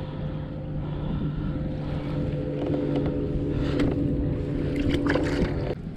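A boat motor running with a steady low hum over wind and water noise. The hum stops abruptly near the end, and a few short knocks and rustles come in the second half.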